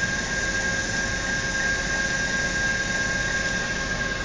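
Diesel locomotive engine idling: a steady hum and rumble with a thin, constant high whine over it.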